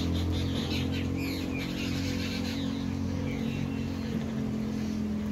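Birds chirping in short calls over a steady low hum.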